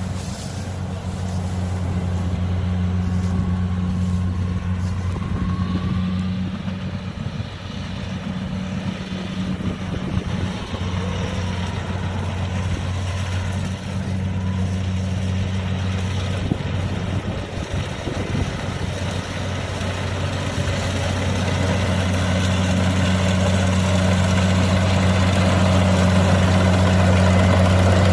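Diesel engine of rice-harvesting machinery running steadily with a low drone and mechanical clatter, growing louder over the last several seconds.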